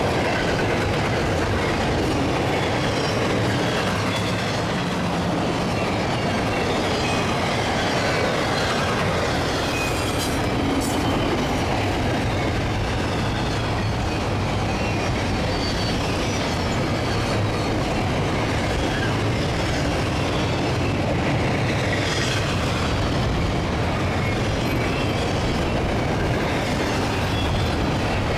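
Double-stack container freight train rolling past: a steady rumble and clatter of its cars' wheels on the rails.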